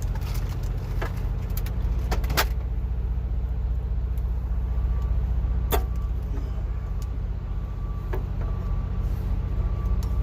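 Truck engine idling with a steady low rumble, with scattered sharp clicks and knocks of hand tools and parts. A faint high tone comes and goes from about halfway.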